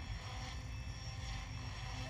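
Radio-controlled helicopter flying, its motor and rotor giving a steady drone, with a low rumble of wind on the microphone.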